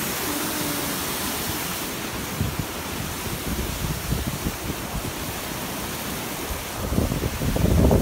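Steady rushing hiss of a stream's white-water cascade over rocks. Wind buffets the microphone with low rumbles from a few seconds in, strongest near the end.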